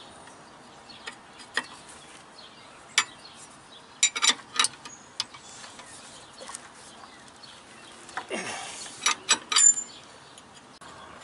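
Steel combination wrenches clinking and clicking against the tight mounting nuts of a truck's spring brake chamber as they are worked loose with two wrenches, a little at a time: scattered sharp metal clicks, a cluster around four seconds in, a short scrape near the end and a few more clinks.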